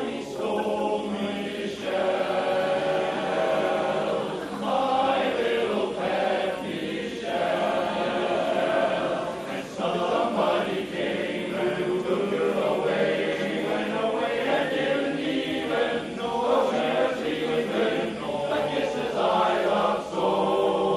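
Barbershop men's chorus singing a cappella in close harmony, with sustained chords that keep moving.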